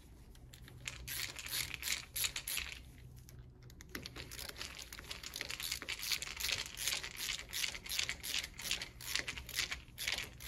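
Quick, irregular small metal clicks and rattles as bolts are worked into the end of a cast-iron bench vise with a red-handled hand tool, over a steady low hum.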